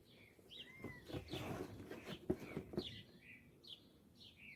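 Small birds chirping repeatedly in short, quick calls, with a few knocks and rustling from objects being handled about a second to three seconds in.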